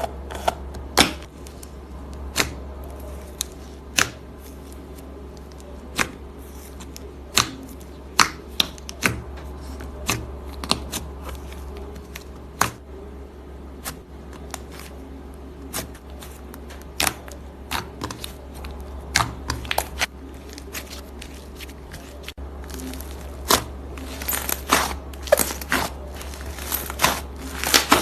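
Slime being worked by hand, with trapped air popping in sharp, irregular clicks that come quicker and denser near the end, over a steady low hum.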